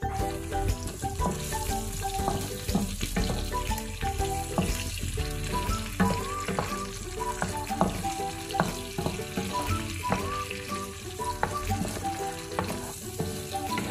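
Sautéed tomato, onion and garlic sauce with tuna dayok sizzling in a frying pan while a wooden spatula stirs it, knocking and scraping against the pan now and then.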